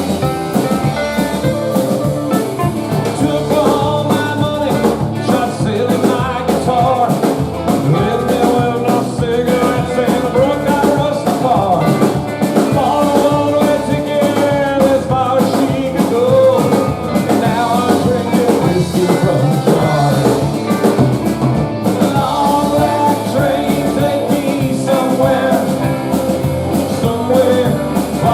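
A rock band playing live, with a singer over guitar and a steady drum beat.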